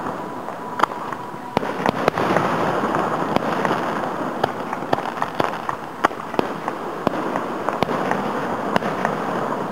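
Aerial firework shells bursting, heard from about a quarter mile away: a string of sharp bangs at irregular intervals, roughly one a second, over a steady background of noise.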